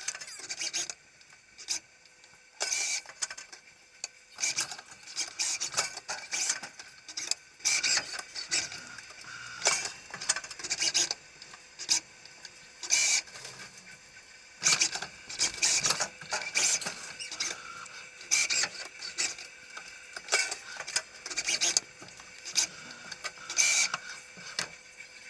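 Machinery of an automated bee-frame assembly cell with a FANUC robot arm running: irregular short bursts of clicking, clatter and noise, every second or so, over a faint steady hum.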